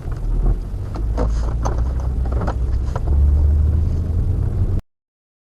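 Low road and engine rumble of a moving car as a dashcam hears it inside the cabin, with a few short knocks and rattles. It grows louder about three seconds in, then cuts off abruptly near the end.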